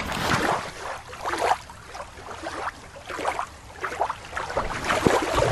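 Shallow water lapping and sloshing at the shore in uneven swells.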